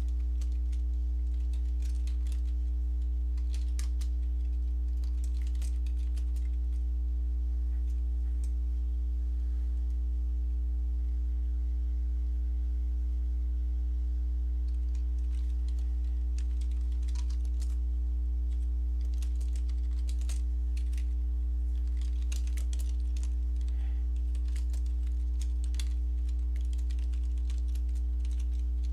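Computer keyboard typing: scattered runs of key clicks, over a steady low electrical hum.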